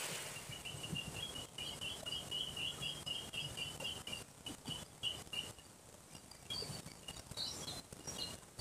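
Small birds chirping: a rapid run of chirps on one pitch for about five seconds, then scattered higher chirps toward the end, over a faint steady hiss.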